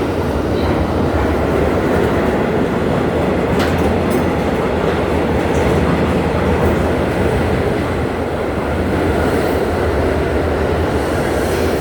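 Subway train running along the track: a steady rumble and rail noise with a few faint clicks.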